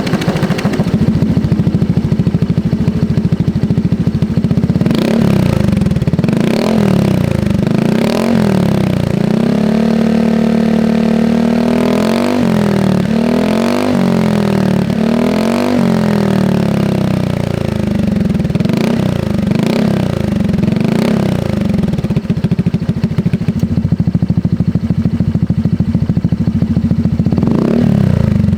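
Automatic scooter's single-cylinder engine through an EvoX ADB valved aftermarket exhaust, valve half open for most of the time, idling and blipped repeatedly. The revs rise and fall many times, with one held rev of about two seconds near the middle.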